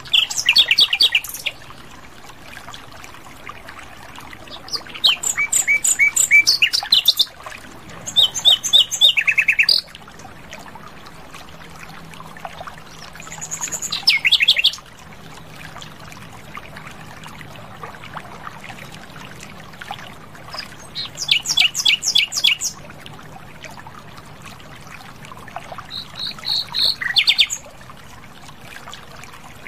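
Common nightingale singing: about six separate phrases of fast, rapidly repeated notes, each lasting one to two seconds, with pauses of a few seconds between them. A faint steady background hiss runs under the song.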